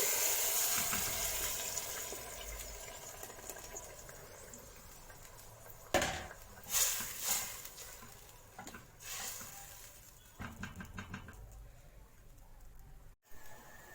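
Tomatoes going into hot oil, ghee and fried garlic in a pot, sizzling loudly and dying down over the first few seconds. A few knocks of a spoon against the pot come about six to seven seconds in, then a quick run of small clicks.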